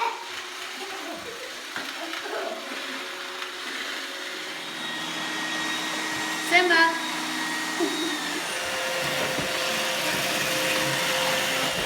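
Roomba robot vacuum running with a steady hum that grows gradually louder through the second half.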